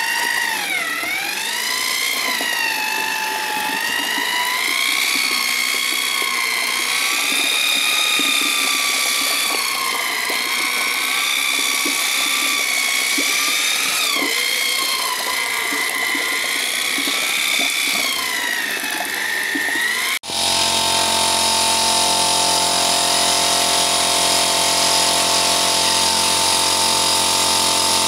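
Corded electric drill with a paddle mixer stirring cement slurry in a plastic bucket, its motor whine rising and falling in pitch as the load on the paddle changes. About twenty seconds in, an abrupt cut gives way to a steadier machine hum of several held tones.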